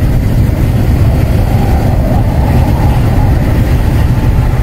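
Inside a semi-truck's cab at highway speed: a loud, steady low rumble of engine and road noise.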